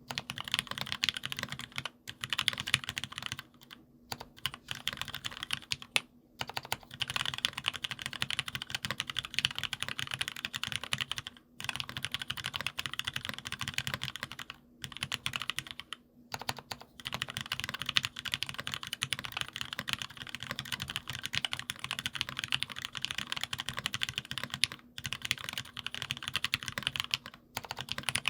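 Fast, continuous typing on a Monstargear XO K80 Alu gasket-mount keyboard with lubed Gateron Merlot tactile switches, 70g springs and HammerWorks Tulip keycaps, broken by brief pauses every few seconds.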